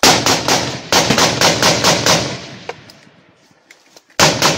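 Loud rifle fire: a rapid string of shots, about four or five a second, for roughly two seconds. After a short lull, another quick burst of shots comes near the end.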